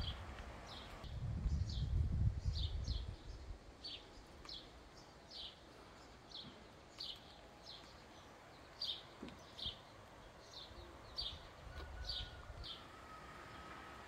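A bird calling over and over, a short falling chirp about twice a second. A low rumble rises between about one and three seconds in and is the loudest part, and a faint thin falling tone comes near the end.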